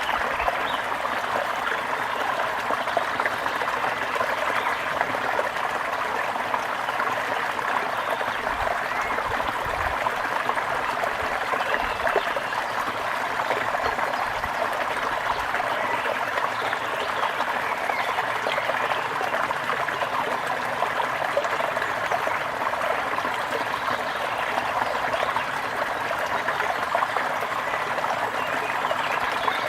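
Water running steadily in a small stream, a continuous trickling.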